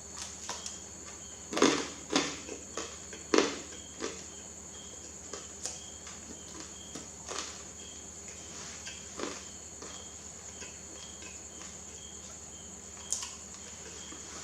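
Close-up mouth sounds of eating a banana: wet smacks and chews, several in the first four seconds, then sparser. Underneath runs a steady high-pitched background trill with short chirps repeating about twice a second.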